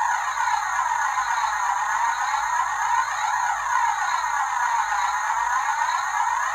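A siren wailing, its pitch rising and falling in a slow cycle about every three seconds.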